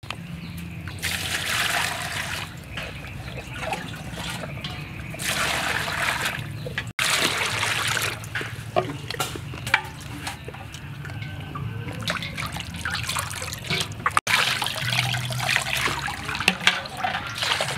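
Water splashing and trickling as a whole plucked chicken is rubbed and rinsed by hand in a metal basin, with water poured over it from a plastic bowl. It comes in several louder surges of a second or two each.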